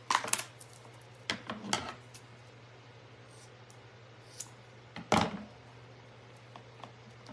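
Scissors being handled at a table: a few light clicks and snips, then a louder knock about five seconds in as they are set down on the wooden tabletop.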